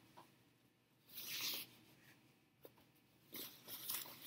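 Cloth flag being handled and bunched up by hand, its fabric rustling in two short bursts, about a second in and again near the end.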